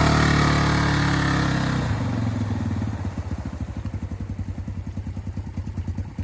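ATV (quad bike) engine running hard as it drives through a shallow river, with water spray hissing off the wheels. About two seconds in the engine note drops and it settles into a quieter, evenly pulsing run as the quad moves away.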